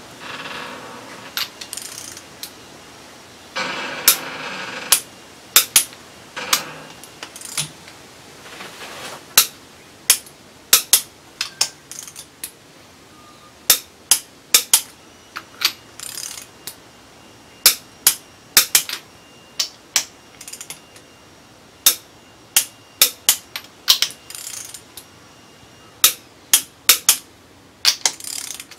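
Hand ratchet clicking in short irregular runs of sharp clicks as cylinder head bolts are run down on a V6 engine block, with a brief scraping rustle about four seconds in.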